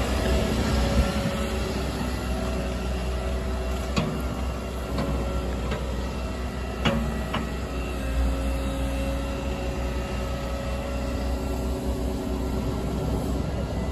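Volvo ECR145EL excavator's diesel engine running steadily, with a few sharp knocks about four and seven seconds in.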